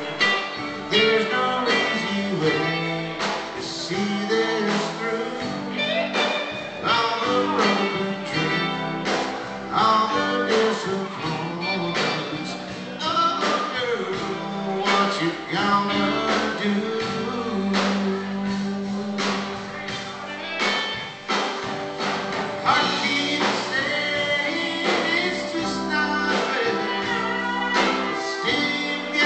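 Live country band playing a song: electric guitars, drums and keyboard with a singer over a steady beat, heard in the dance hall itself.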